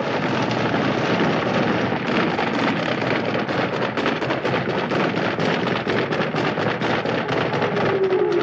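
Massed Zulu warriors beating spears against their cowhide shields: a loud, continuous clatter of rapid strikes.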